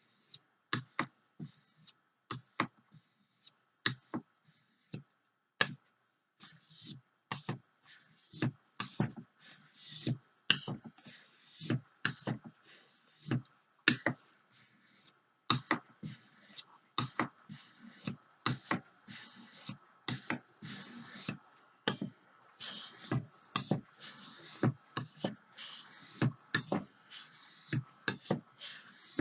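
Knife blade stroked across the wet 3000-grit side of a 3000/8000 grit water stone: short scraping strokes repeated about once or twice a second, ten on each side of the blade.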